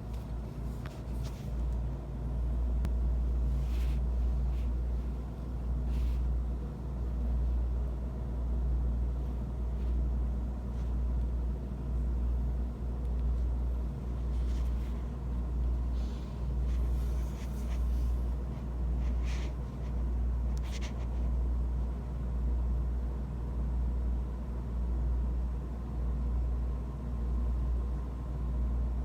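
Low, steady rumble of an idling vehicle engine, swelling and easing every couple of seconds, with a few faint clicks and knocks.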